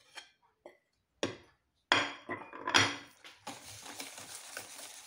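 A metal spoon knocking and scraping against a plate and mixing bowl as flour is pushed off into cupcake batter, loudest twice about two and three seconds in. From about three and a half seconds in, a wire whisk stirs the flour into the batter with a steady swishing.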